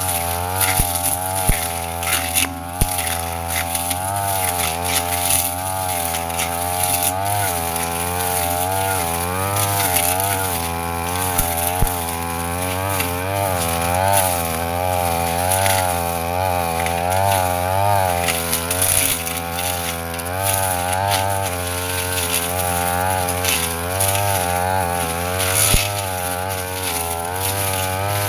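Brush cutter engine running at high speed, its pitch rising and falling over and over as the blade cuts through undergrowth, with a few sharp ticks.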